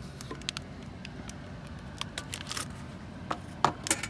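Aluminium foil crinkling and rustling as it is pulled off a metal pan, with irregular small crackles and clicks over a faint low steady hum.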